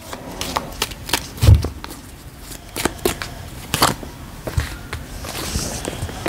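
A deck of round tarot cards being shuffled by hand: a string of irregular card clicks and slaps, with one heavier thump about a second and a half in.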